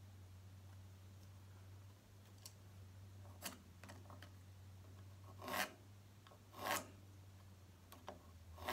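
Pencil scratching short marking strokes on a wooden workpiece: about four brief, faint rasps a second or two apart, over a low steady hum.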